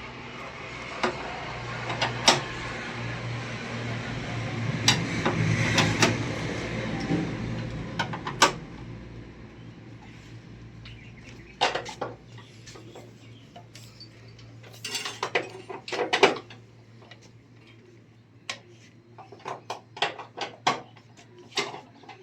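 Metal clinks and knocks of tools and parts being handled, over a steady low hum. A rushing noise swells and fades during the first several seconds.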